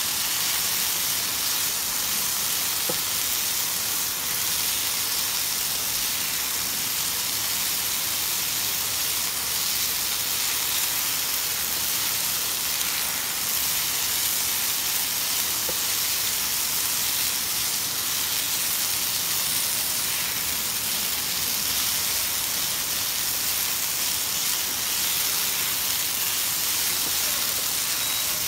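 Chicken breast frying in a pan, a steady sizzle that runs on without a break.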